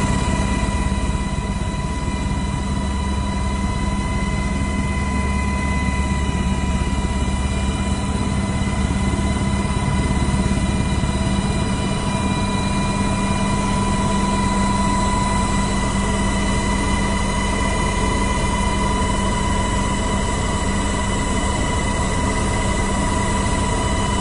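Steady aircraft engine drone heard from inside the cabin, with a constant high whine over a low rumble.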